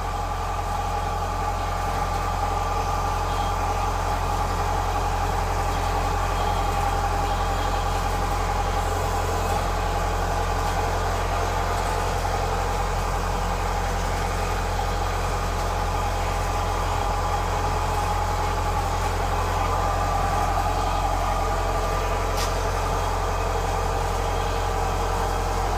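Diesel farm-machine engine idling steadily, a constant low hum with an even drone above it. There is a single light click near the end.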